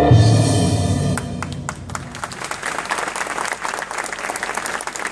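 The song's last chord dies away over the first second or so. A large crowd then breaks into steady applause.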